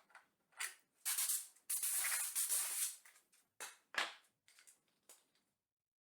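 Several short, sudden bursts of hiss in a row with silent gaps between them, the longest lasting about a second.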